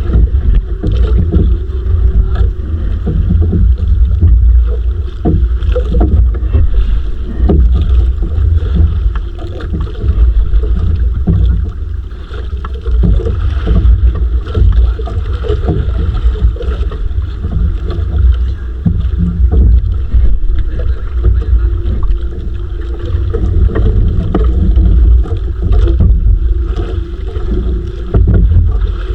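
Heavy low rumble of wind buffeting the microphone aboard a small outrigger fishing boat at sea, rising and falling in gusts, with a faint steady hum above it.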